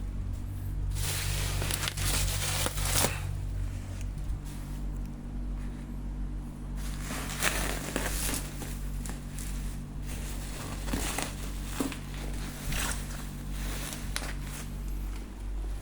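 Refrigerator packaging being handled, crinkling and tearing in several bursts, over a steady low hum.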